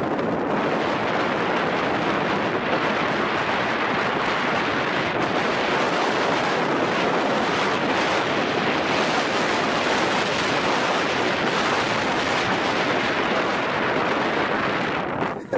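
Steady rush of wind on the microphone mixed with the running of an alpine coaster sled along its tubular steel rails during a fast descent; the sound dips briefly near the end.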